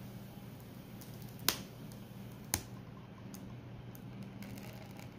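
Flan custard mixture pouring in a thin stream into a round aluminium cake pan, faint under a low steady hum. Two sharp clicks sound about a second apart.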